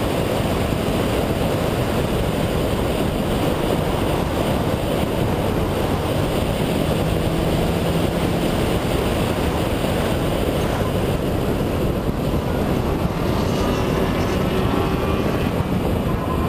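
Mazda RX-7 FD's twin-turbo rotary engine running at speed on track, mixed with heavy wind and road noise. Near the end the engine note climbs as the car accelerates.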